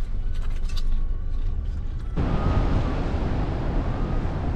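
A motor's low rumble with wind noise on the microphone; about two seconds in the wind hiss suddenly gets much louder and stays.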